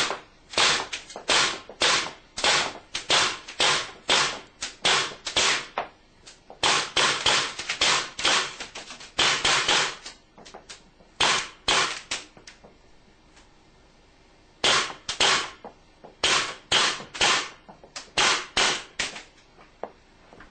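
Airgun firing rapidly, about two shots a second, in several strings of shots with short pauses between them; each shot is a sharp crack with a short tail.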